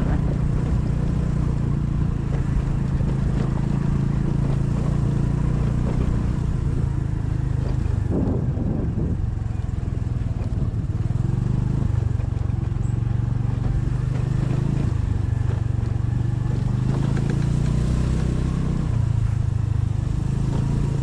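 Motor vehicle running steadily on the road, heard from on board: a continuous low engine and road rumble whose pitch shifts a little now and then.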